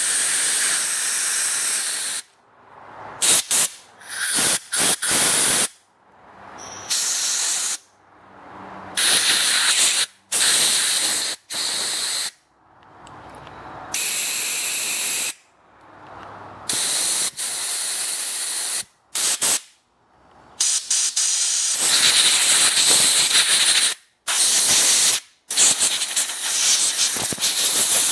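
Compressed air from an air-compressor blowgun hissing through the jet holes and passages of a small-engine carburetor, to clear them after cleaning. It comes in on-off blasts from a fraction of a second to about two seconds long, with the longest, most continuous blowing near the end.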